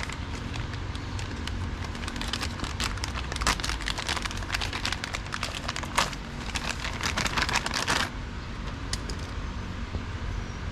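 Hands working on a drive belt and pulleys: a dense run of clicks, scrapes and rattles that starts about two seconds in and stops abruptly near eight seconds, over a steady low rumble.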